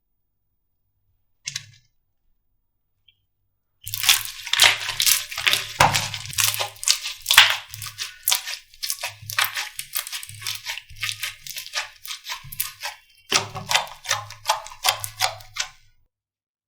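Slime being squished and pressed by hand: a dense run of wet crackling and popping, with a short break about three-quarters through before it resumes. A single click comes just before it.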